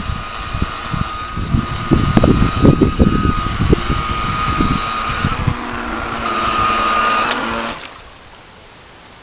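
Electric motor of a Tornado 16-inch 9.6-volt RC boat whining steadily as the boat runs at speed past the microphone, with wind buffeting the microphone in the first half. The whine grows louder near the end, then cuts off suddenly.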